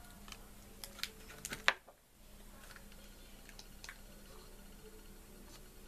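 Soft clicks and taps of fingers pressing thin slices of Arko shaving soap into the bottom of a lathering bowl, a handful of small knocks with the loudest about a second and a half in.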